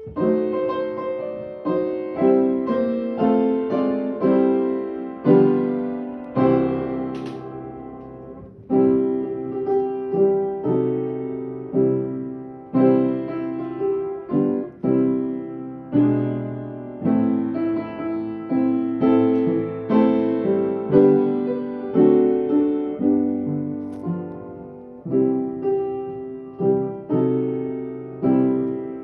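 Solo piano or keyboard playing a slow worship tune, chords struck about once or twice a second and left to ring.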